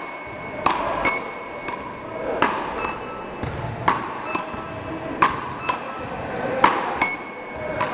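A beach-racket (matkot) rally: a ball struck back and forth by two wooden paddles, sharp cracking hits about one every two-thirds of a second, echoing in the hall. Several hits are followed by a short high beep from the rally's electronic scoring device.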